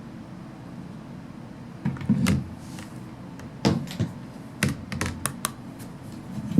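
A scattered series of about eight sharp knocks and clicks, as of hard tools being handled and set down on a surface, starting about two seconds in.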